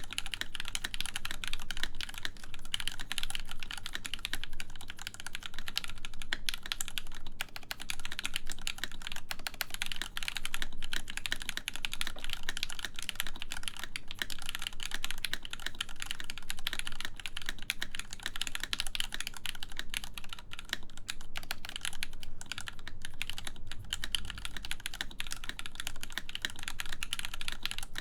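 Continuous fast typing on a full-size mechanical keyboard with lubed Gateron X linear switches in an aluminum plate, a dense stream of keystroke clacks with no pauses.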